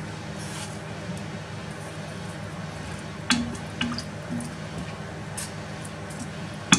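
Wooden spoon scooping salt from a plastic tub and tipping it into a pot of water, making a few faint clicks and soft liquid sounds over a steady low hum.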